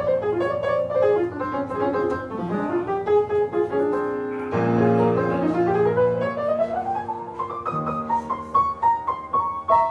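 Upright piano playing a jazz intro: chords with fast runs sweeping down the keyboard, a new chord struck about four and a half seconds in, then a run climbing back up.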